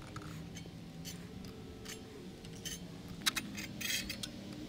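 Light metallic clicks and a short scrape as a steel square is handled against a miter saw blade and table, over a faint steady hum.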